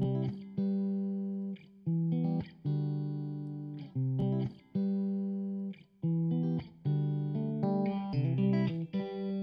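Background music on guitar: plucked chords and notes held for about a second each, with short gaps between phrases.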